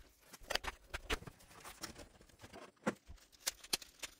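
Hands unpacking a cardboard comic-book mailer and a plastic-wrapped stack of comics on a table: cardboard and plastic wrap rustling, with several sharp taps and knocks.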